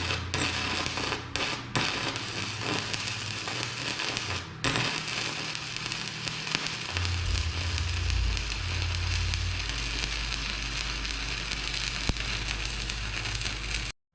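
Stick welding arc crackling and sizzling steadily as teeth are welded to steel bucket shanks, with a few brief breaks in the arc in the first five seconds and a low steady hum underneath. It cuts off suddenly near the end.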